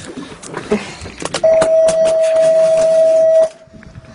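A steady electronic beep, one pitch held for about two seconds, starting about a second and a half in, with scattered clicks and knocks around it.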